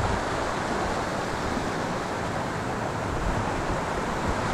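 Mountain stream rushing over rocks and small cascades, a steady wash of water noise.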